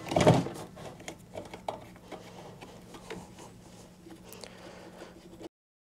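Faint, irregular metal clicks and knocks as the power feed unit of a RIDGID K7500 drum drain-cleaning machine is fitted and clamped onto the machine's frame by hand. The sound cuts off suddenly near the end.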